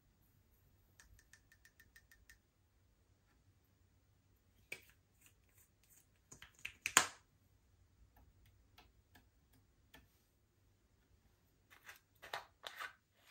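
Slime being worked by hand, giving a scatter of small sticky pops and clicks. The loudest pop comes about seven seconds in, with a quick run of faint ticks about a second in and another cluster of pops near the end.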